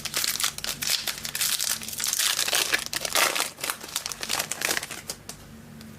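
Foil trading card pack wrapper crinkling and crackling in the hands as it is opened, stopping about five seconds in.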